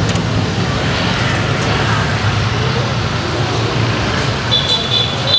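Steady road traffic noise from a busy street, with a thin high tone briefly near the end.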